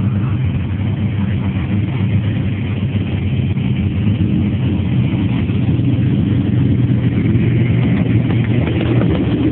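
Supercharged 5.4-litre V8 of a Ford SVT Lightning pickup, running steadily without revving.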